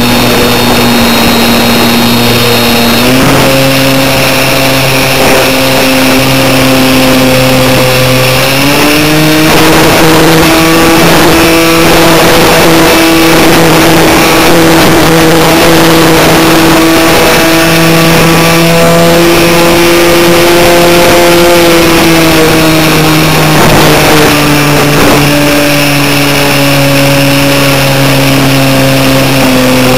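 Skybug RC plane's motor and propeller, heard from a camera under the wing in flight: a steady drone that steps up in pitch twice in the first nine seconds as the throttle opens, holds, then eases down in steps through the last third. Wind rush over the microphone runs underneath.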